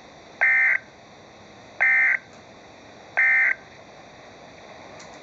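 Emergency Alert System end-of-message data tones: three short, identical bursts of high, buzzing digital data, each about a third of a second long and about 1.4 s apart, signalling that the warning broadcast has ended.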